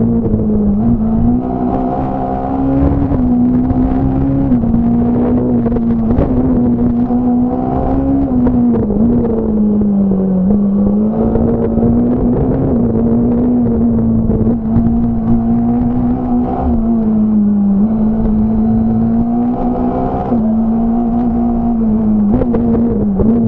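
Fiat Punto S1600 rally car's naturally aspirated 1.6-litre four-cylinder engine, heard from inside the cabin. It is running hard at high revs under load, and its note holds high with brief dips and quick recoveries every few seconds as gears are changed.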